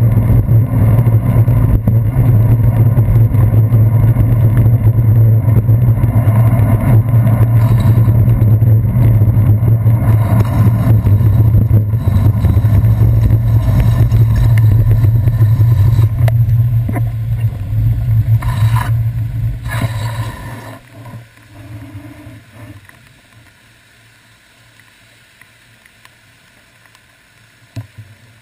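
Wind and road rumble from a bicycle riding on wet city streets, picked up by a handlebar-mounted GoPro. It is loud and steady, then dies away about two-thirds of the way through, leaving faint traffic.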